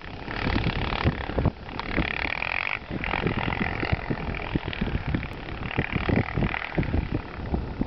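Honda TRX400EX quad's single-cylinder four-stroke engine revving up and easing off several times as it is ridden through snow.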